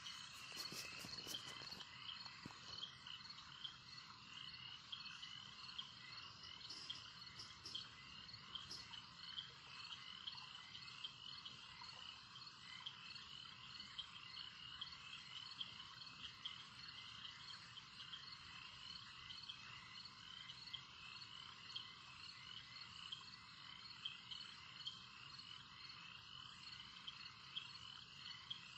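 Faint, steady chorus of chirping animal calls, the chirps repeating evenly a few times a second, with a few sharp clicks near the start.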